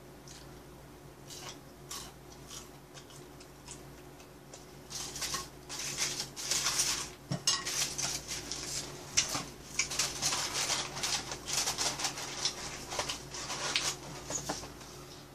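Aluminium foil crinkling and rustling as it is handled and crumpled over a plate, in dense irregular bursts from about five seconds in, after a few light clicks.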